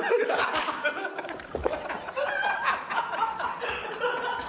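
Men laughing helplessly in a laughing fit, snickering and chuckling without a break.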